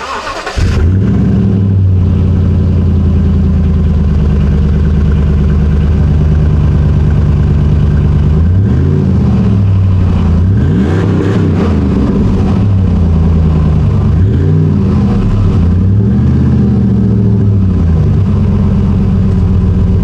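2007 Dodge Ram 1500's 4.7-litre V8 running through a Flowmaster 50 Delta Flow muffler, heard at the tailpipe. It idles steadily, then from about eight seconds in it is revved up and down several times before settling back to idle.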